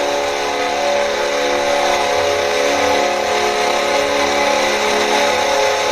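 Nashville Predators arena goal horn sounding one long, steady, foghorn-like blast.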